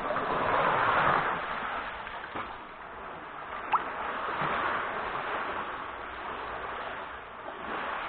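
Sea waves washing onto the beach, swelling twice: about a second in and again around the middle. A short, high rising squeak sounds a little before the middle.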